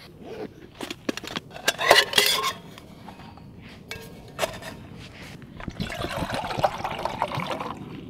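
Clicks and rustles as camping coffee gear is handled and set down, then water poured from a plastic bottle into a metal camping mug, starting about six seconds in.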